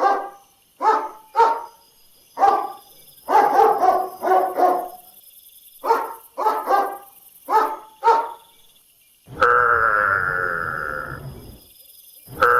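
A dog barking repeatedly, about a dozen short barks in single barks and quick runs. About nine seconds in, a long bleating call of about two seconds from a different animal starts, and another begins near the end.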